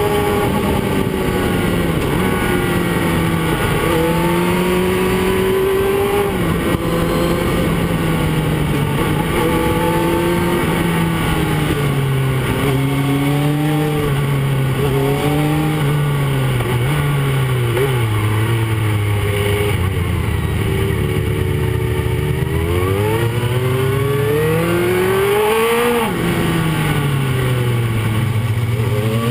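Motorcycle engine heard from a camera on the bike, its revs rising and falling with throttle and gear changes; near the end the revs climb for a few seconds and drop sharply at a shift. Steady wind and road noise runs underneath.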